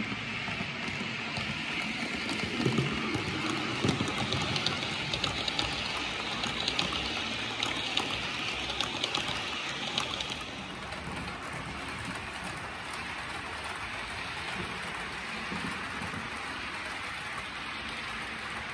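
Model trains running on a layout's track: a steady rolling hiss with many small clicks, loudest in the first ten seconds as a coach passes close, then a quieter, even hiss from about ten seconds in.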